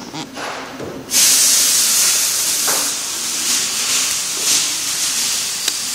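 Air hissing steadily from a red Zipp lock ring installation tool, starting suddenly about a second in, after a few light handling clicks.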